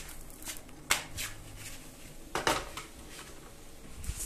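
A few sharp clinks and knocks of a frying pan and kitchen utensils, the loudest about a second in and another about two and a half seconds in.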